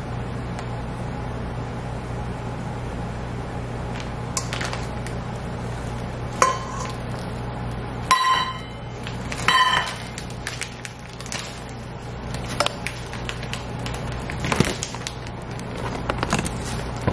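A metal measuring cup knocking against a stainless steel mixing bowl three times near the middle, each knock leaving the bowl ringing, followed by lighter clicks and rustling. A steady low hum runs underneath.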